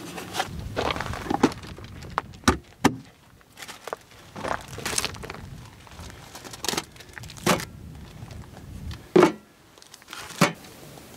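Food packages and utensils handled and set down on a metal camp-kitchen table: irregular sharp knocks and clacks, with plastic wrappers rustling between them.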